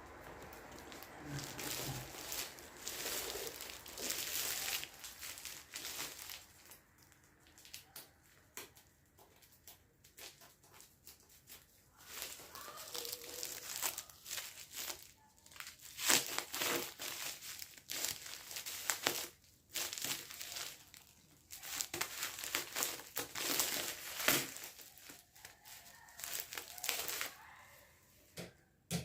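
Parcel wrapping crinkling and tearing as a package is opened by hand, in irregular crackles and rips.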